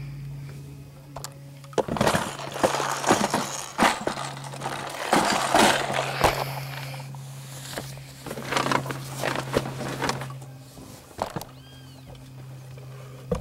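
Loud, irregular rustling and knocking of the camera being handled and moved for several seconds in the middle, over a steady low hum that runs throughout.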